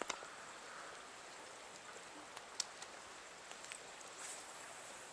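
Faint, steady hiss of a flowing stream, with a few light clicks and taps: one at the start, a sharper one about two and a half seconds in.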